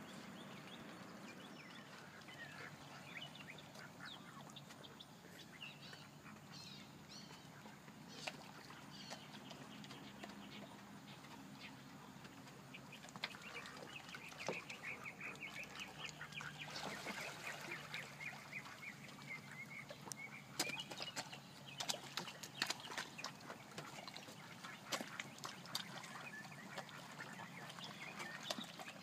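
A small flock of white domestic ducks quacking: scattered short calls at first, growing into a busy run of quacks about halfway through.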